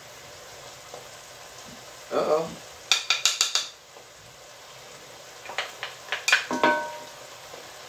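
A wooden spoon tapping and scraping against a small glass bowl, knocking kamut flour into the soup pot: a quick run of taps about three seconds in and a few more near the end, one with a short glassy ring. Under it, a low steady sizzle from the pot.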